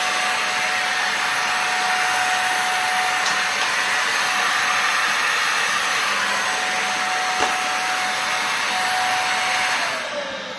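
Dyson DC50 upright vacuum cleaner running with a steady rush of air and a high whine. The owner says it sounds funny, like it is only sucking through the hose and not through the floor head: a loss of suction at the floor tool. Near the end it is switched off and the whine falls away as the motor winds down.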